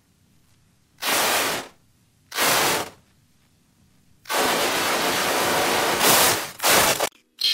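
Steam hissing from a cartoon steam engine: two short hisses, then a longer hiss lasting nearly three seconds that swells and breaks up near the end.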